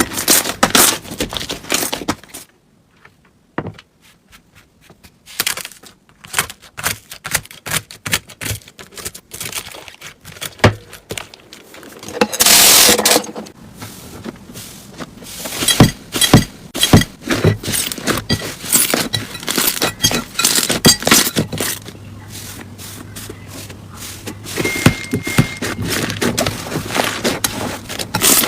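Slime being pressed, poked and squished by hand, giving a string of sticky clicks, crackles and pops, with a longer, louder squish a little before the middle.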